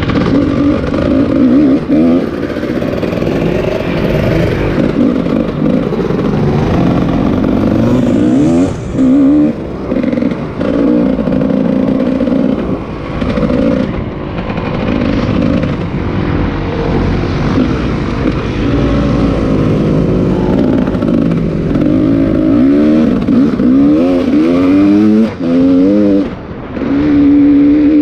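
A vehicle engine running hard under load, its pitch climbing and falling again and again as it revs, with a few brief drops in loudness.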